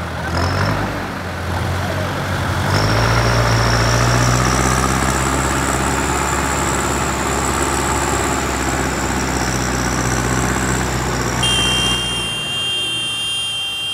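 Diesel engines of several farm tractors, a Massey Ferguson 5455 among them, running together. About three seconds in they rev up and hold steady under load as they pull in line on a tow rope, then drop back near the end, where a steady high whine comes in.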